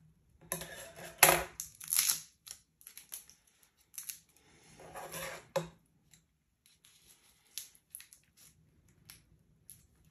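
Scissors cutting at the tape wrapped around the knot of a snake bag, with irregular crinkling and rustling of the tape and bag as it is handled. The crackling comes in uneven spurts with quiet gaps between.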